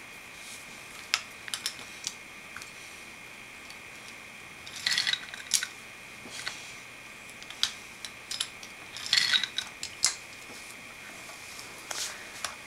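Scattered light clicks and short clatters of small toy trains and wooden track pieces being handled and knocked together, with two busier bursts of clatter about five and nine seconds in.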